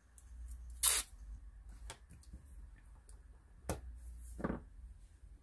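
Fingers handling and pressing down masking tape on the edge of paper on a wooden desk: a short sharp rustle about a second in, then a click and a soft scuff near the end.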